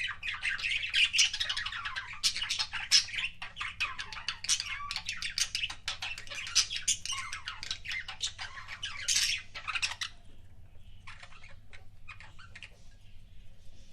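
Budgerigars chattering with rapid chirps and squawks, dense and continuous for about ten seconds, then thinning to scattered short calls.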